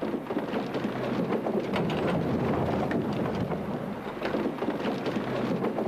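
Heavy sawn firewood logs sliding off a tipping trailer body, a continuous rumbling clatter of many logs knocking against each other and the metal bed as the load is dumped onto a pile.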